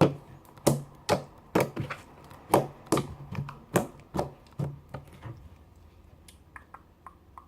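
Thick glue slime made from white and clear Elmer's glue being kneaded and squeezed by hand, making sharp, wet clicks and pops about twice a second that fade out after about five seconds into a few faint clicks.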